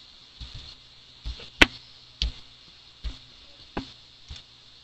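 Computer mouse clicks: about seven short, sharp clicks at uneven intervals, the loudest about a second and a half in, over a faint steady hum.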